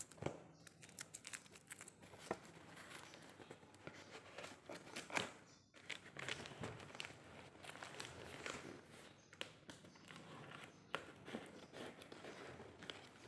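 Faint crinkling, tearing and scraping as a taped cardboard box is cut open with scissors and handled, with scattered irregular clicks, the loudest about five seconds in.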